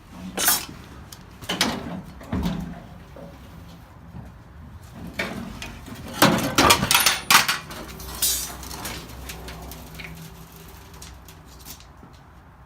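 Clanks and scrapes of a steel car fender being worked loose and pulled off, in scattered knocks with a busy cluster about halfway through.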